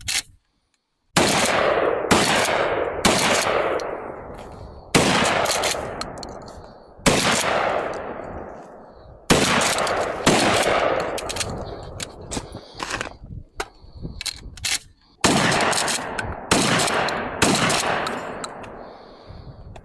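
Single heavy gunshots fired one after another, about ten in all, one to two seconds apart, each followed by a long echoing decay, with a few small mechanical clicks between some shots.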